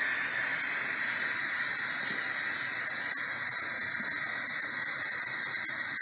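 Water rushing through the plumbing as a new gas water heater tank fills, a steady hiss that fades slightly.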